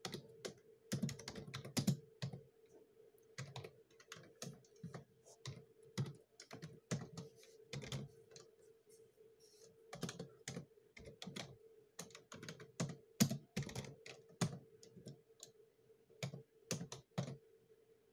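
Typing on a computer keyboard: irregular runs of keystrokes with short pauses between them, over a faint steady hum.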